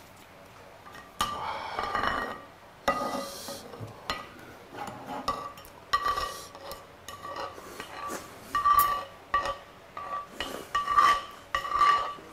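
Wooden spoon scraping and knocking against a plate in repeated strokes, the plate ringing with a clear tone on many of them, as the last of the food is scraped off.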